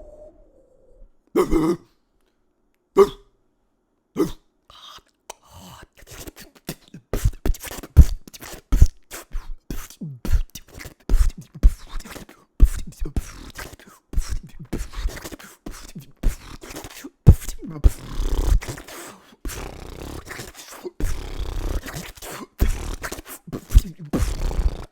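Beatboxing made with the mouth: a few separate hits at first, then from about six seconds a fast, dense run of vocal kick drums and clicks to the end.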